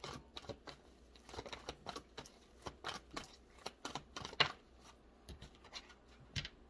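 Tarot cards being shuffled and handled: a run of irregular light snaps and flicks of card stock, stopping shortly before the end.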